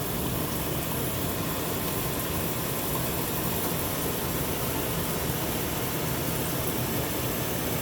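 Shower water running: a steady, even hiss of spray.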